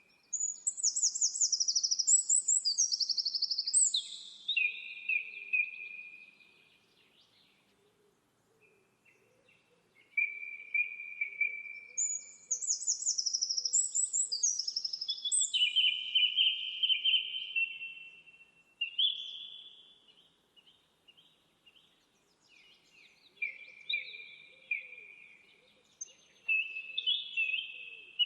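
A small songbird singing long phrases of high, fast trills that step down in pitch. The phrases come in separate bursts with quiet pauses between them.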